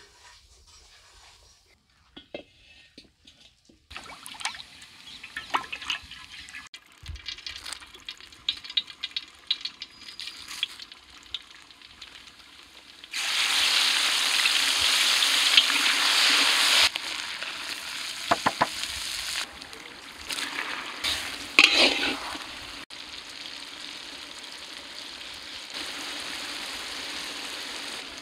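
Whole spices and dried red chillies crackling and sizzling in hot oil in a large aluminium kadai, stirred with a spoon. About halfway through, a loud burst of sizzling as ginger, garlic and green chilli go into the oil lasts a few seconds, then settles to a quieter sizzle with a few knocks of the spoon on the pan.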